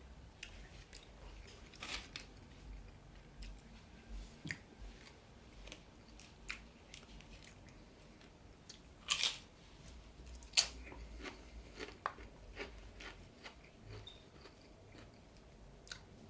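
Close-up chewing and mouth sounds of a person eating a grilled chicken burrito: soft, scattered wet clicks, with two louder crackles a little past the middle.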